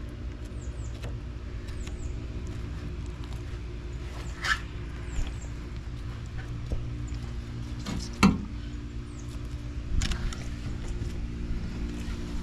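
A steady low machine hum throughout, over a fillet knife cutting through a black drum's flesh and rib bones on a stainless steel table: a few short knocks and scrapes, the loudest a little past the middle. Faint high chirps come now and then.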